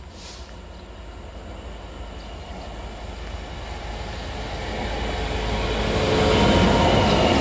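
Freightliner Class 66 diesel locomotive, with its two-stroke V12 engine, approaching and passing with a container train. Its engine rumble and wheel noise grow steadily louder, loudest about six seconds in as the locomotive goes by.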